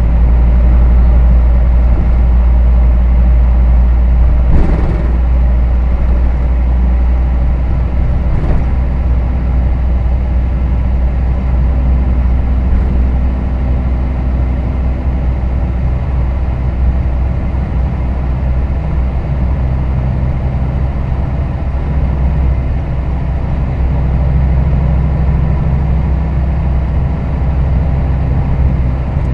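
Hino Rainbow HR city bus heard from inside the cabin, its diesel engine running with a steady low drone whose engine tones shift as the bus drives. Two brief knocks sound, about four and a half seconds in and again about eight and a half seconds in.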